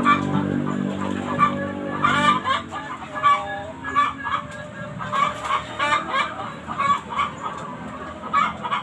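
Chickens in the coop clucking repeatedly, short calls one after another. A steady low hum sounds under them at first and stops about two and a half seconds in.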